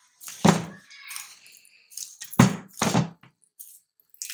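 Dough being kneaded by hand in a ceramic bowl, the fist pressing and punching it to work the air out: several dull thumps with soft squishes, the heaviest about half a second and about two and a half seconds in.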